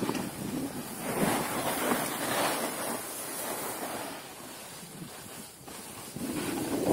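Skis hissing and scraping over packed snow on a downhill run, with wind rushing over the phone's microphone. The rush swells and fades, and grows louder again near the end.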